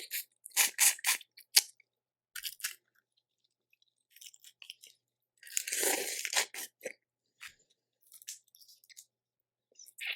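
Boiled shellfish being eaten: shells cracked and peeled by hand, with chewing and crunching. A run of sharp cracks comes in the first second or two, and a longer crackling crunch comes about six seconds in.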